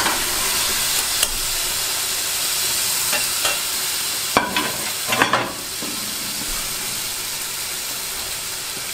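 Browned chicken and mutton sizzling in hot oil with fried onion and spices in a stockpot, a steady frying hiss that eases a little after about five seconds. A few light clinks come from a ceramic plate and fork being set down on the stove about four to five seconds in.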